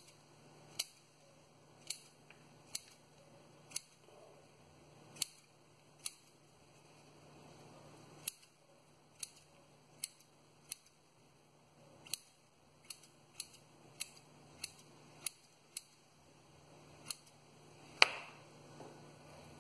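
Small pruning scissors snipping through the roots of a pepper-plant seedling as its root ball is thinned out: about twenty sharp snips at an uneven pace, roughly one a second, coming faster for a few seconds past the middle, the loudest near the end.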